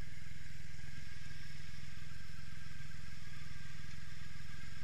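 Cruiser motorcycle's engine idling with a steady, evenly pulsing low rumble while the bike stands at the curb.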